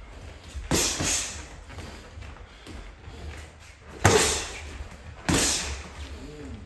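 Boxing gloves striking during sparring: punches landing on gloves and headgear, a quick pair of smacks near the start, then single hard ones about four and five seconds in.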